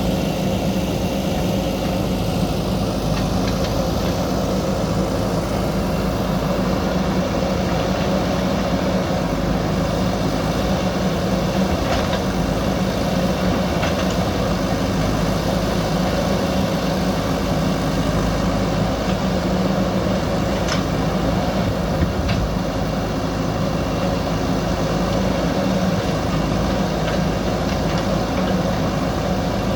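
JCB backhoe loader's diesel engine running steadily, with a few light knocks from the machine about halfway through.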